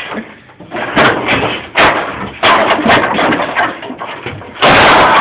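Irregular loud knocks and bangs, a hit every half second or so, with the loudest, longest bang near the end.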